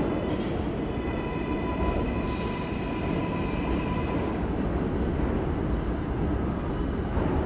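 New York City subway train running along the station platform: a steady rumble and rail noise, with a thin, steady high whine through the middle.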